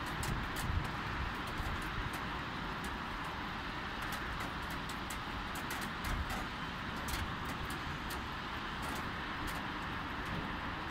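Light rain with a steady wash of road traffic below, and many irregular sharp ticks of raindrops landing close by.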